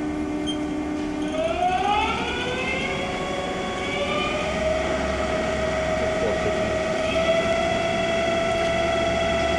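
Haas SL-40 CNC lathe spindle in high range being sped up: the spindle drive's whine holds steady, then rises in pitch about a second in and settles into a steady higher whine, with a small further rise near the end.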